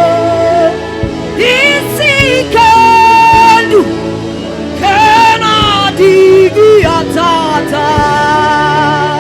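Gospel worship music: a singer's voice holding long notes with vibrato over a live band's backing.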